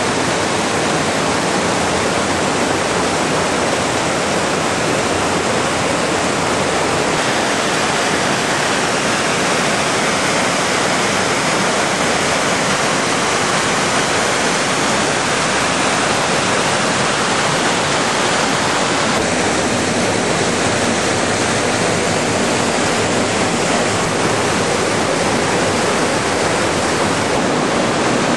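River Lyd white water cascading over rock falls: a steady, dense rush of falling and churning water, whose tone changes slightly twice as the view moves between falls.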